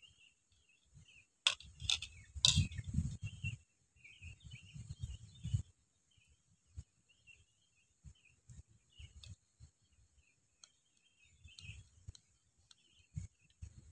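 Small birds chirping on and off, with a steady high hiss beneath. A few sharp clicks and a low rumble are loudest from about a second and a half to five and a half seconds in, and faint low thuds follow later.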